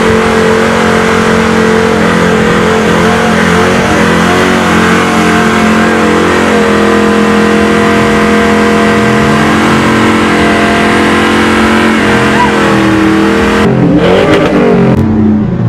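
Ford Mustang's engine held at steady high revs while its rear tyres spin in a smoky burnout, over a hiss of tyre noise. Near the end the revs drop and rise in a few quick blips.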